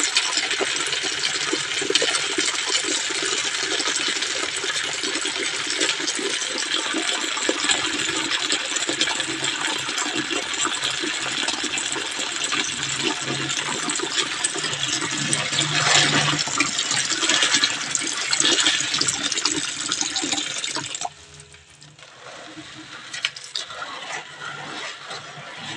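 Running water pouring into a plastic basin full of yellow beans being washed, a steady gushing splash. About 21 seconds in the flow stops abruptly, leaving quieter sloshing and small splashes as the beans are swirled in the water.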